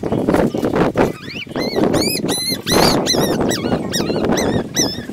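Young puppies squealing and whining while one is bottle-fed: a quick run of short, high squeaks that rise and fall, about three a second from about a second and a half in, over a loud rough noise.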